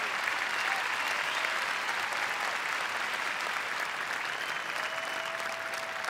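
A large arena audience applauding steadily, with a few faint cheers rising above the clapping.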